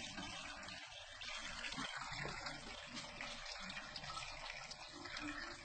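Beko washing machine filling during its test mode: a steady rush of water pouring into the machine.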